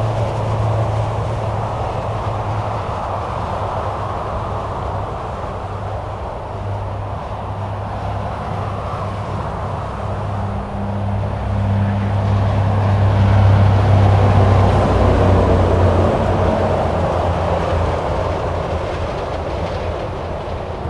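Highway traffic going by: a continuous rush of tyres with a low engine hum underneath, swelling louder a little past the middle as a vehicle passes close, then easing off.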